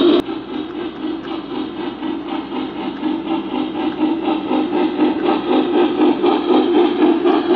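Three-rail O scale model of a streamlined Norfolk & Western K2a 4-8-2 steam locomotive running on the track. It gives a steady hum with an even beat of about four or five pulses a second, growing louder as it approaches.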